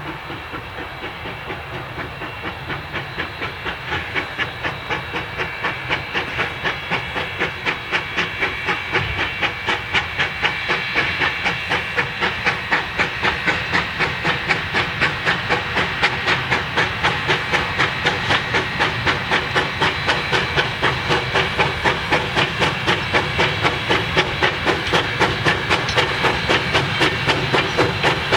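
Ten-wheeler (4-6-0) steam locomotive No. 152 working a train: a steady beat of exhaust chuffs, about three a second, over a constant steam hiss, growing louder as it comes closer.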